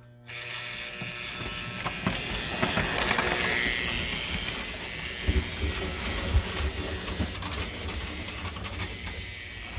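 American Flyer model train running past on the layout's track: a steady rolling, rattling noise of metal wheels on the rails, with a few sharper clicks about halfway through.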